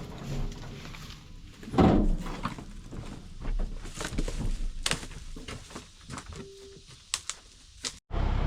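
Irregular thuds and sharp knocks, scattered and uneven, with a short steady hum about six and a half seconds in. The sound drops out briefly near the end.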